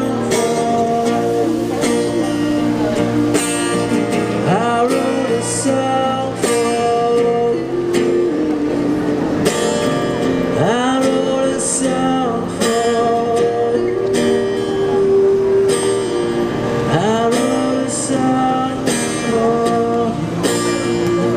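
A man singing into a microphone while strumming an acoustic guitar, amplified through a small portable speaker.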